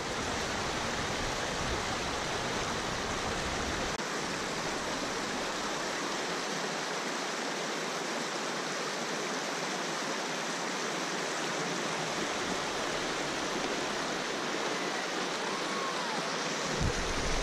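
River rapid: whitewater rushing steadily over rocks.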